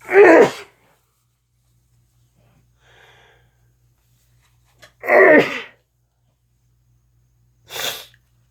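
A person sneezing repeatedly: a loud sneeze right away, another about five seconds in, and a shorter, quieter one near the end.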